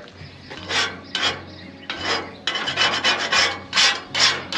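Metal putty knife scraping burnt-on gunk and old seasoning off a hot cast iron griddle pan: a series of short scraping strokes, coming faster from about halfway through.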